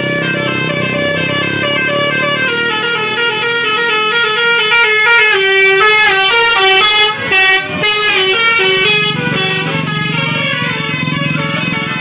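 A tour bus's basuri 'telolet' musical horn plays a quick tune of held notes that step up and down in pitch as the bus passes. Engine rumble runs under it before the tune starts and again near the end.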